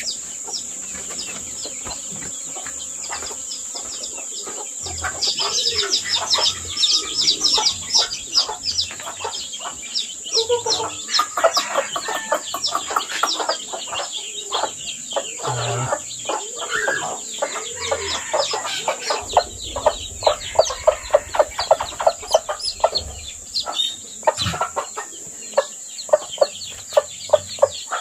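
Newly hatched chicks peeping in quick, repeated high chirps, with a hen clucking among them. The peeping grows busier about five seconds in, and turns to sharper, louder single peeps near the end.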